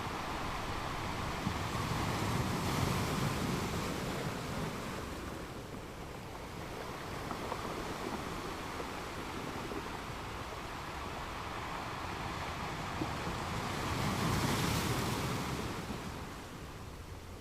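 Ocean surf: a steady wash of waves that swells twice, about two to four seconds in and again near the end, as waves break and surge.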